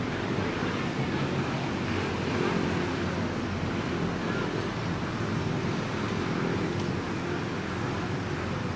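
Steady outdoor background noise: an even wash with a low rumble and faint, indistinct voices in it.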